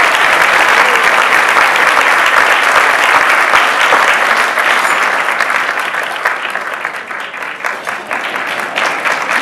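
Audience applauding, with voices in the crowd. The clapping thins out and gets quieter over the last few seconds.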